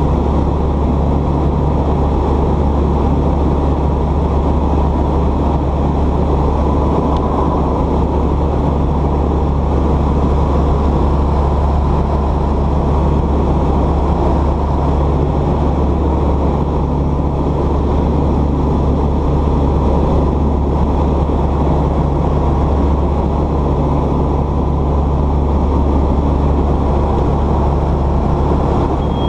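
Light aircraft's piston engine and propeller running at a steady drone, heard from inside the cabin.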